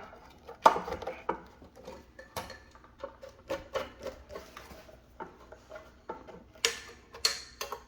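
A screw being tightened into a ceiling fan during assembly, giving scattered small metal clicks and clinks of the screwdriver and parts, with a louder group of clicks near the end.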